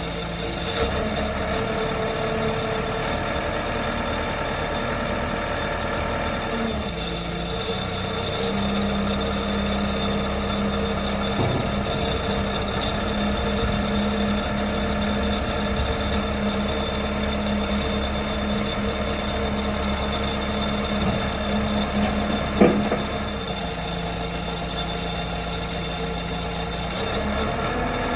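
Diesel engine of a 2001 JCB 214 Series 3 backhoe loader running steadily. Its speed steps up about eight seconds in and drops back down near the end, with a single sharp knock just before the drop.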